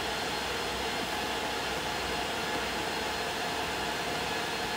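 Steady background noise: an even hiss with a faint low hum, unchanging throughout, with no distinct events.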